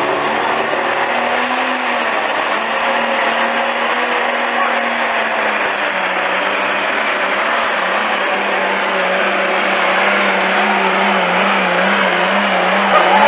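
Ford 8000 pulling tractor's diesel engine running flat out under load as it drags the pulling sled, a loud steady drone that wobbles in pitch and grows a little louder near the end.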